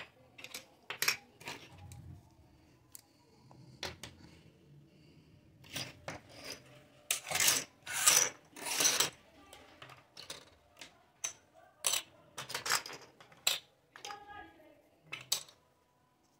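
Small plastic toy kitchen pieces (cups, plates, lids and utensils) clicking and clattering as they are set down on a hard table, with a louder rattle of a handful of little plastic utensils being spread out around the middle.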